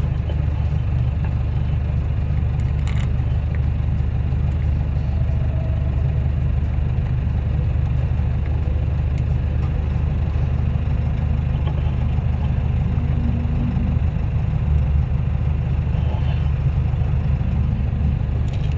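An engine idling with a steady low drone, and a few faint metallic clicks as bolts are fitted by hand on a clutch slave cylinder.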